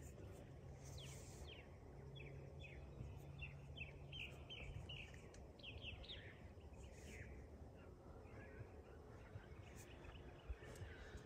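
Faint bird song: a run of short, quick downward-sliding chirps over several seconds, fading out past the middle, against near silence with a faint low hum in the first half.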